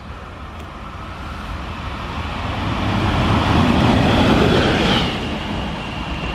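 DB Class 185 (Bombardier TRAXX) electric locomotive approaching and passing close by: wheel-on-rail rumble swells to its loudest about four seconds in. A high whine from the locomotive drops in pitch as it goes by and carries on after the pass.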